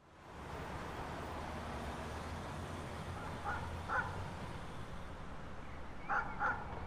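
Outdoor ambience fading in, with a steady low hum underneath and a bird calling in four short calls, two pairs from about halfway in.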